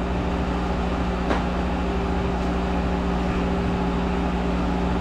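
Monarch 10EE lathe running with a steady hum and a low steady tone. There is a single short click about a second in.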